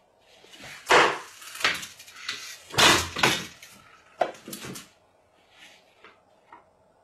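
A run of thumps and scraping knocks, the loudest about one second and three seconds in, thinning to a few faint taps after about five seconds.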